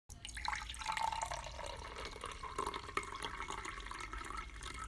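Liquid pouring and splashing steadily.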